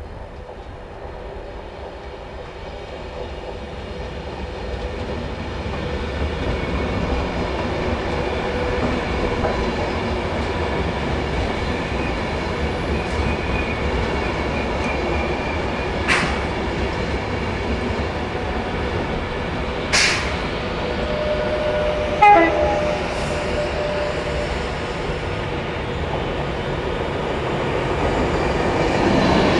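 Class 390 Pendolino electric train approaching and running past, its steady rumble of wheels and motors building over the first several seconds and then holding. Two sharp cracks come partway through, and a brief steady high tone about three-quarters of the way in.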